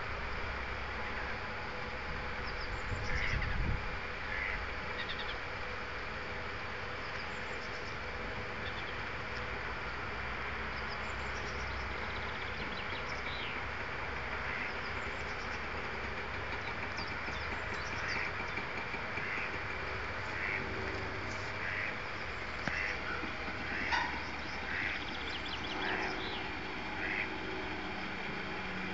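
Steady mechanical hum from the electric drive of a blue tank bridge at a sewage treatment plant, with a brief low rumble about three seconds in. Short high bird chirps come again and again over it, more often in the second half.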